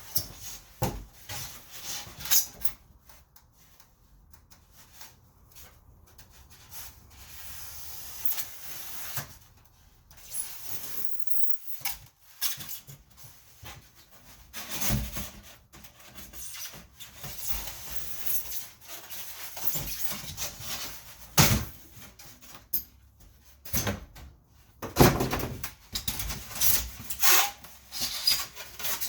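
Irregular rubbing and scraping with scattered knocks against wood, from material being worked into place in a boat's floor framing; the busiest stretch comes near the end.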